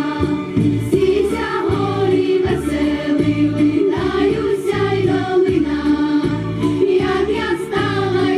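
Girls' folk choir singing a Ukrainian folk song together, over an accompaniment with a steady low beat.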